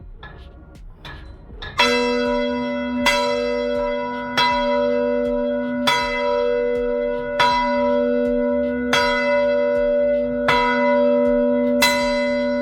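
A church bell struck eight times at an even pace, about one stroke every one and a half seconds, the same note each time, ringing on between strokes. A few faint knocks come just before the first stroke.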